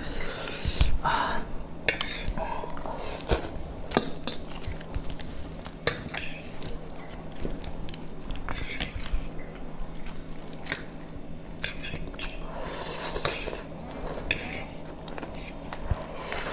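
People chewing and biting food in an eating challenge, wet mouth sounds with irregular sharp clicks of cutlery and dishes.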